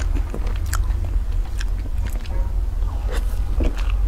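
Close-up eating sounds of a person taking a spoonful of chocolate Oreo cream cake: scattered wet mouth clicks and smacks of chewing and biting, over a steady low hum.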